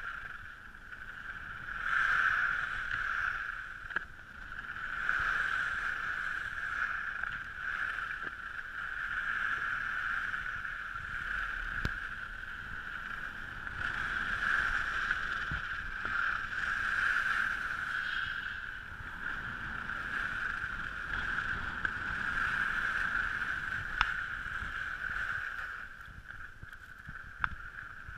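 Skis sliding and scraping over packed snow, swelling and fading with each turn, with a few sharp clicks along the way.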